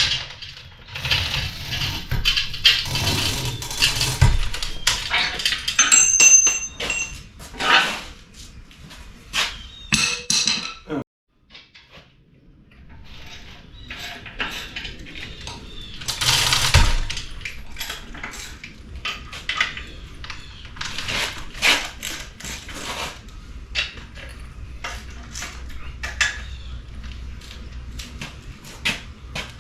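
Metal bolts and hardware clinking and clattering as they are rummaged through and handled, in many irregular knocks.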